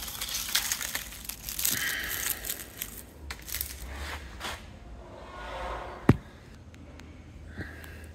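Workshop clatter of tools and metal car parts: irregular knocks and scraping as the front suspension and subframe come off, with one sharp, loud metallic knock about six seconds in.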